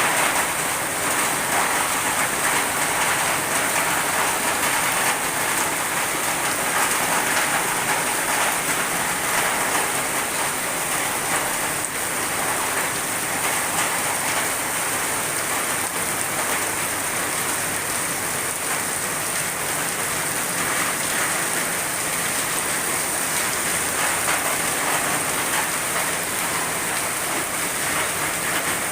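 Heavy downpour, a steady loud hiss of rain falling and drumming on surfaces, even throughout.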